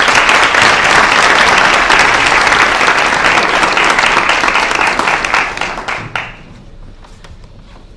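Applause from many people clapping, which dies away about six seconds in.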